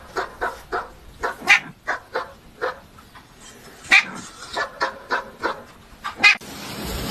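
A dog barking: an irregular run of about fifteen short, sharp barks.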